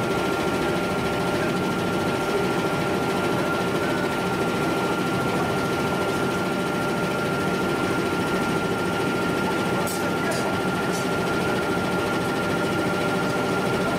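Steady forging-shop machinery drone with a constant high whine. A few short metallic clinks come about ten seconds in.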